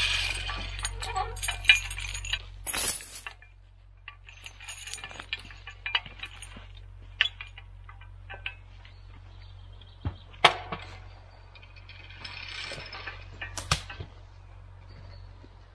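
Steel chains on a cable-logging carriage clinking as they are handled, then scattered sharp snaps and crackles of twigs and brush underfoot. The busiest stretch is the first few seconds, two sharp cracks stand out near the end, and a low steady hum runs underneath.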